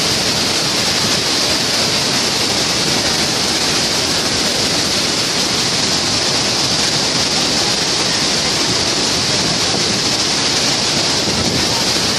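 Floodwater rushing through a barrage's open spillway gates: a steady, loud wash of churning water and spray that does not change.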